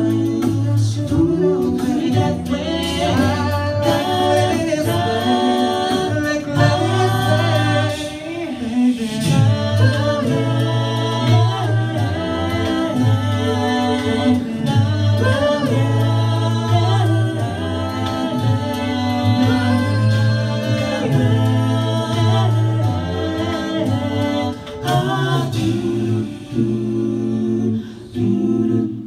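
A cappella group singing without words: several voices in close harmony over a sung bass line, with vocal percussion.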